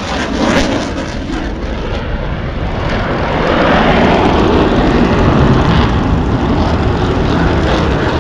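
A fast military jet making a high-speed pass, its engine noise a steady roar that grows louder about two to four seconds in and then holds.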